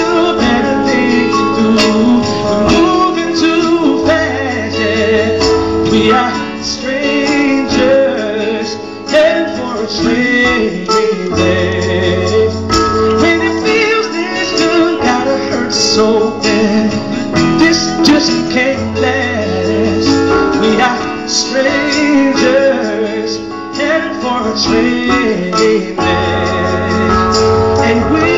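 A male singer singing a slow pop-soul song live, accompanied by acoustic guitar and keyboard, with held low bass notes under the chords.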